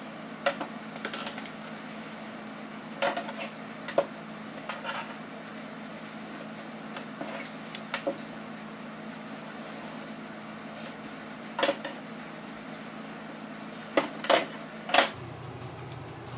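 Wooden ruler and marker tapping and knocking on a tabletop while a seam line is drawn on fabric: scattered single clicks a second or more apart, with three louder knocks close together near the end, over a faint steady hum.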